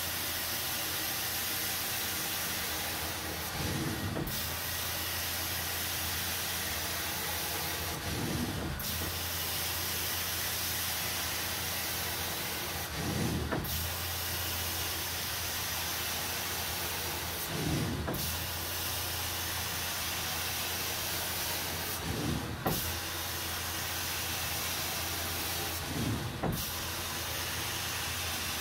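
Carpet-extraction wand and machine running: a steady suction hiss over a constant motor hum. About every four to five seconds, between strokes, the hiss breaks off briefly and a short swell of lower sound comes in, then the steady hiss returns.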